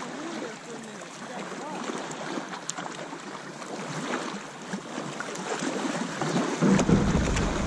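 Water splashing and lapping around a kayak, with small knocks. About seven seconds in, wind starts buffeting the microphone with a low rumble.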